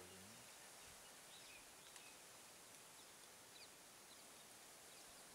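Near silence: faint outdoor background hiss with a few faint, short bird chirps.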